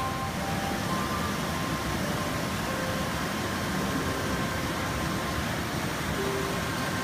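Waterfall pouring into a pool, a steady rush of turbulent water.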